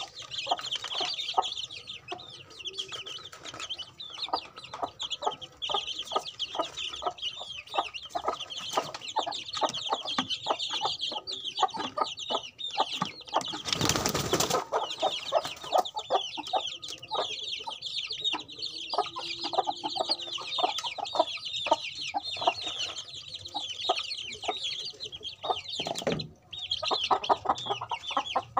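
A flock of young chicks peeping constantly in high, overlapping chirps, with many quick taps from beaks pecking at soil. About halfway through comes a loud rustling burst lasting about a second.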